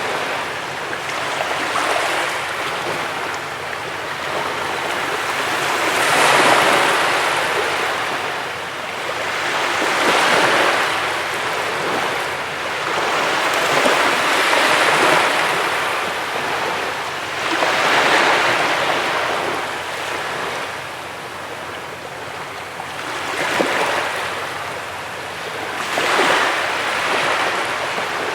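Sea waves breaking on a beach: a steady wash of surf that swells and falls back roughly every four seconds.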